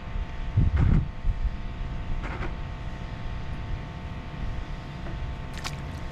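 Wind buffeting the microphone in gusts, loudest about a second in, over a steady low rumble with a faint steady whine.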